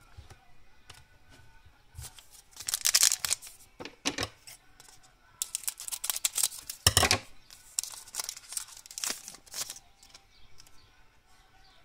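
Shiny foil wrapper of a trading-card pack crinkling as it is handled and torn open, in groups of short crackling bursts, the loudest about seven seconds in.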